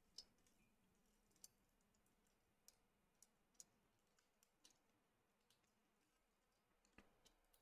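Near silence with about ten faint, irregularly spaced small clicks as the keyboard's colour-coded column wires are handled and pushed into place.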